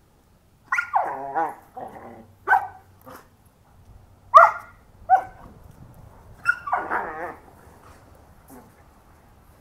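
Dogs barking and yelping in bursts as a German Shepherd puppy and a Doberman play-fight over a rope: about six high-pitched barks, the longest ones just after the start and about two thirds of the way in.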